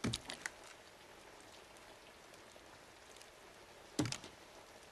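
Handguns and metal magazines being picked up and handled on a table: a quick cluster of sharp metal clicks at the start, a few faint ones in the middle, and another clatter about four seconds in.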